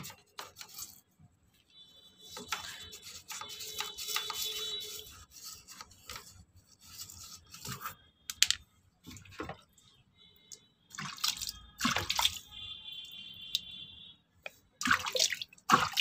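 Toothbrush bristles scrubbing inside the plastic drain-filter housing of a front-load washing machine, in irregular strokes, with water splashing and running out of the opening near the end.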